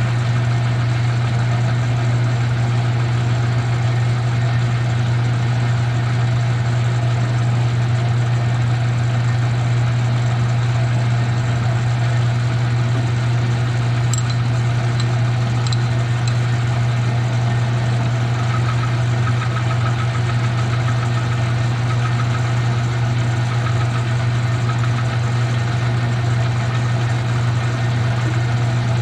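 Metal lathe running steadily on aluminium stock, a strong even low hum from the machine's motor and drive. A faint thin squeal comes and goes in the second half.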